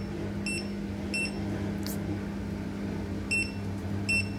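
CATLINK self-cleaning cat litter box beeping from its control panel: two pairs of short, high electronic beeps, the beeps in each pair about two-thirds of a second apart, over a steady low hum.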